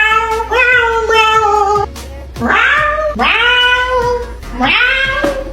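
A person's voice making loud, drawn-out cat-like yowling cries, about four in a row, each sliding up in pitch and then held.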